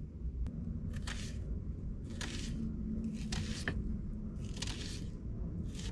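Knife slicing through a raw onion on a wooden cutting board: about five separate crunching strokes, roughly one a second.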